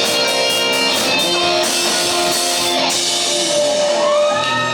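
Live band music led by guitars, with held chords and notes in a rock style.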